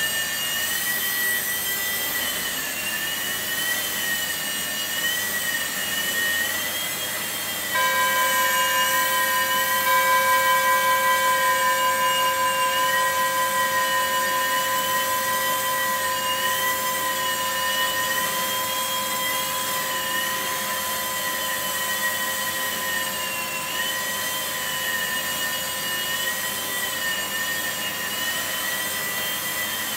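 Blade mSR micro RC helicopter's small electric motors whining in flight, the pitch wavering up and down continually. About eight seconds in, a steady hum of several tones starts suddenly and slowly fades.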